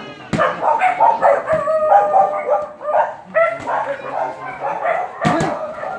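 Dogs barking and yelping over and over in short, broken calls. Punches land on a heavy bag, once about a third of a second in and again near the end.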